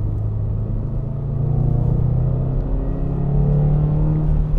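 Toyota GR86's naturally aspirated 2.4-litre flat-four engine heard from inside the cabin, pulling under acceleration, its pitch rising steadily from about a second in.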